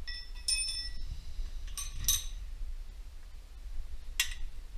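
Metal clinking and ringing as the engine and its sheet-metal shroud are heaved and rocked loose from the tractor by hand. A few light clinks come in the first two seconds, and a single sharper click about four seconds in.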